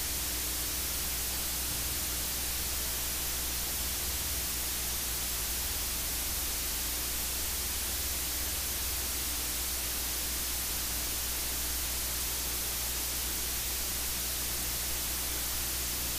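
Steady hiss of static with a faint low hum underneath, unchanging throughout; no distinct sounds stand out from it.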